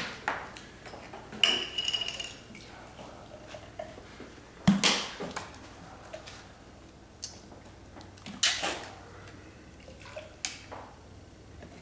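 Liquids poured from plastic jugs and bottles into glasses, with bottles and glasses knocking on a granite countertop now and then and a brief squeak about a second and a half in.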